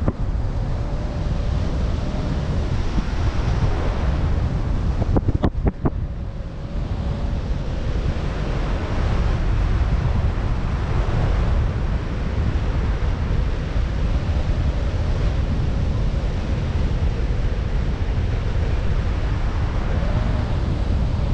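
Airflow of a paraglider in flight rushing over the camera's microphone as steady, low wind noise, with a few brief knocks about five seconds in.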